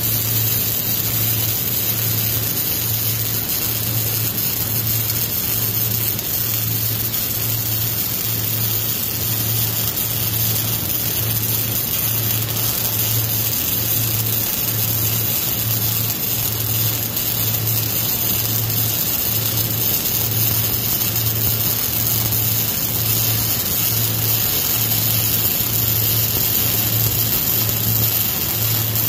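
Wire-feed (MIG) welding arc on steel burning continuously, a steady crackling hiss. Under it runs a low hum that swells and drops about three times every two seconds.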